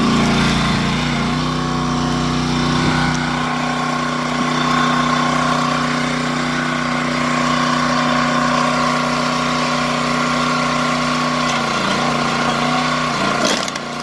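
Gas engine of a 22-ton Dirty Hand Tools log splitter running at full throttle, driving the hydraulic pump. Its pitch dips briefly about a second in and again near the end, and a short clatter of splitting wood comes near the end.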